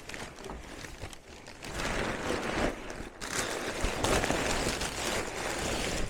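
Packing paper and cardboard rustling and crumpling in swells, with a few light knocks.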